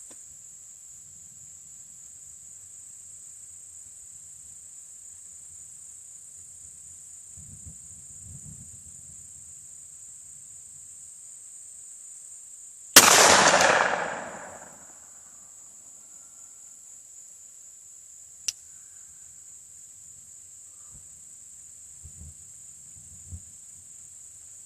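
A single Glock 19 9mm pistol shot about halfway through: one sharp report that dies away over about two seconds. Steady high insect chirring runs throughout, and a faint click comes a few seconds after the shot.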